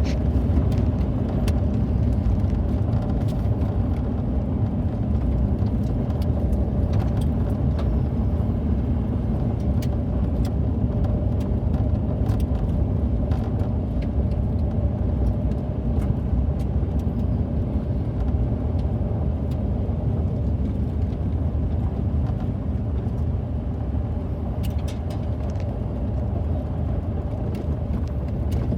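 A car driving at a steady pace: a continuous low rumble of engine and tyres, with scattered faint ticks.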